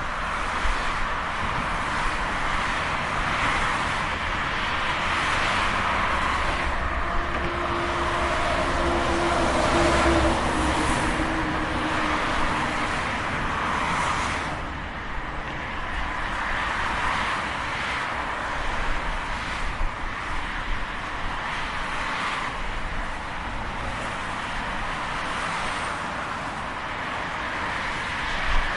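Highway traffic: a steady rush of cars passing at speed, their tyre noise swelling and fading one after another. About a quarter of the way in, one passing vehicle adds a humming tone that slowly falls in pitch over several seconds.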